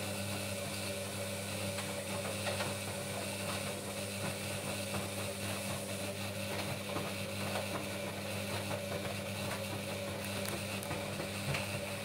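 Skyworth 7 kg front-loading washing machine running its wash cycle, the drum motor humming steadily as the drum turns the clothes, with faint irregular clicks and sloshing.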